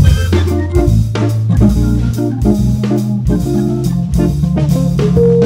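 Jazz organ trio playing: organ, electric guitar and drum kit, with a bass line stepping beneath a steady drum beat.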